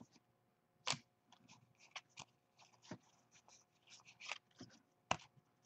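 Baseball trading cards being handled and flipped through: faint scattered clicks and rustles of card stock, with sharper snaps about a second in and near the end.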